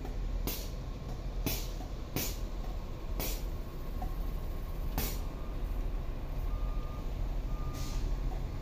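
Heavy truck running at idle with a steady low rumble, broken by several short sharp hisses of air. Faint intermittent reversing beeps come in during the second half.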